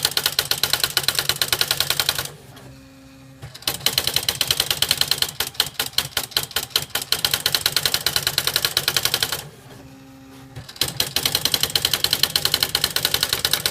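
Smith Corona Display 900 electronic typewriter's daisy wheel printing out a stored line, a fast, even run of sharp strikes. Twice the strikes stop for a second or so, leaving a quieter steady hum, before the next run starts.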